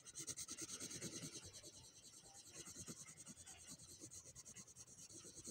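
Colored pencil shading on paper, rubbed in rapid back-and-forth strokes, several a second: a faint, steady scratching.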